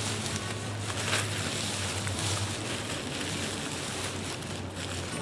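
Hilleberg Enan tent fabric rustling as its 9 mm DAC pole is fed through the full-length pole sleeve, over a steady low rumble.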